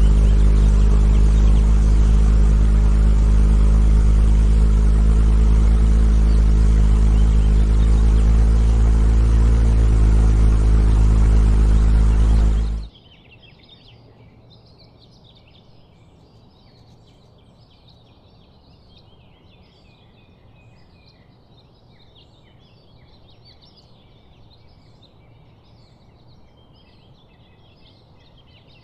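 A loud, steady, low droning noise with several constant tones cuts off abruptly about 13 seconds in. It leaves faint, busy chirping of small birds.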